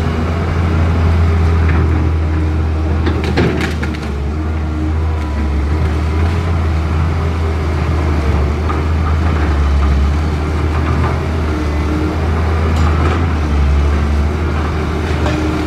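Cat 320C excavator's diesel engine running steadily under load. A brief cluster of sharp knocks comes about three seconds in, and fainter ones near the end.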